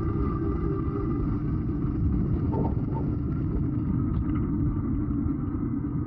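Steady low rumble of wind on the microphone and tyres rolling on the path while riding a bicycle.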